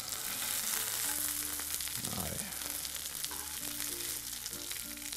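Hake steaks and prawns sizzling in a hot frying pan, a steady frying hiss.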